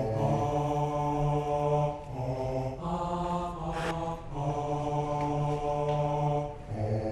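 A low male voice chanting an incantation in long held tones, one drawn-out note after another with short breaks between them.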